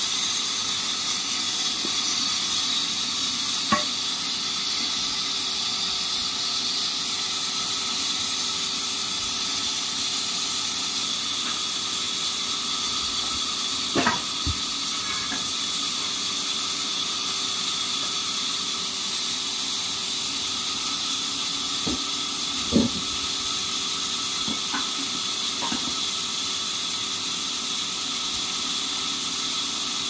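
Steady hiss and hum of band sawmill machinery running between cuts, with a few dull knocks as a log is handled onto the carriage, the loudest about midway and again near 23 seconds in.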